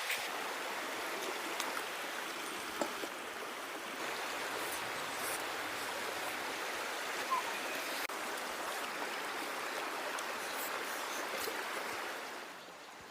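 A small stream babbling steadily, with a few faint clicks over the rush of water; it drops away near the end.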